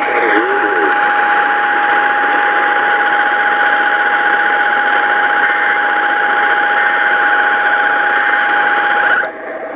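Emergency Alert System attention tone: a steady electronic tone over radio hiss, held for about nine seconds, then cutting off suddenly. It marks the start of an emergency alert broadcast.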